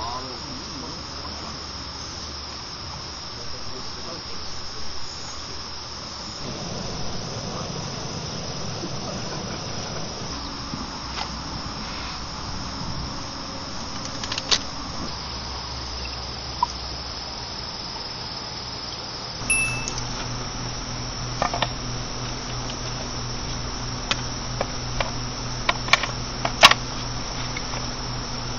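Crickets chirring steadily in a high, continuous band, with a few small sharp clicks and knocks in the second half and a low steady hum that comes in about two-thirds of the way through.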